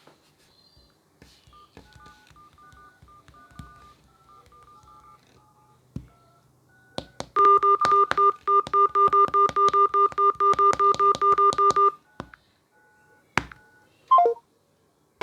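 Telephone tones as a call is placed: faint short beeps with light taps, then a loud, rapid two-tone beeping of about five pulses a second for about four and a half seconds. It stops suddenly and is followed by a click and a short falling chirp near the end.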